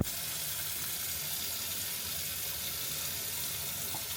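Tap water running steadily into a sink, an even hiss, opened by a sharp click at the very start.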